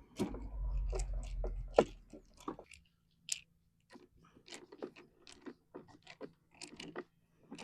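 Plastic parts of an electric pressure washer being handled and screwed together with a hand screwdriver: irregular small clicks, creaks and scrapes, with a low handling rumble and a sharp knock in the first two seconds.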